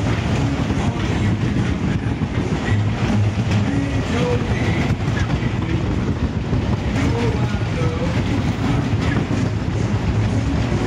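Steady rumble and rattle of a whip fairground ride car running round its track, heard from on board.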